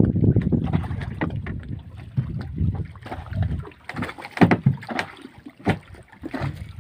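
Small boat at sea: a rough, uneven low rumble of wind and water against the hull, broken by frequent sharp knocks and clatters on board, the loudest about two-thirds of the way in.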